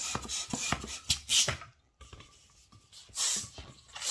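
Handheld plastic balloon pump inflating a long 260 twisting balloon: a few strokes of rushing air with clicks from the pump. The sound cuts off suddenly about halfway through, then comes intermittent soft rubbing of the inflated latex balloon being handled.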